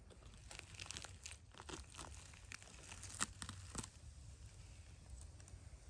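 Dry forest-floor litter of needles, twigs and moss crackling and rustling under a hand as a mushroom is worked loose and picked: a run of sharp crackles for about three seconds.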